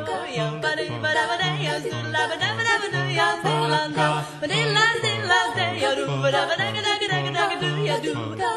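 Background music: a song with a sung vocal line over a bass that steps between two notes about twice a second.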